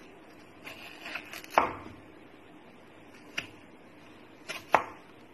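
A kitchen knife cutting through a red onion and knocking on a wooden cutting board: a few separate chops, the loudest about a second and a half in, another midway, and two close together near the end, with a soft scrape of the blade before the first one.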